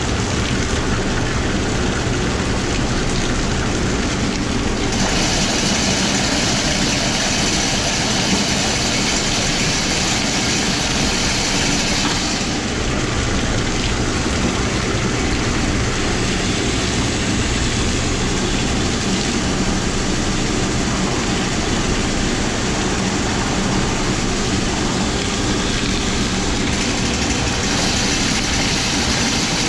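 Electric drain-cleaning machine's motor running steadily while its cable works a grease-clogged floor drain, with water from a hose streaming into the drain. A brighter hiss comes in at about five seconds and drops away at about twelve.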